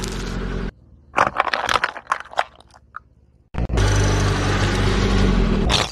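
A car tyre rolling over bundles of wooden matches: steady car and tyre noise, then about a second in a rapid cluster of sharp crackling snaps for about two seconds as the sticks break. The car's steady running noise returns about halfway through and cuts off just before the end.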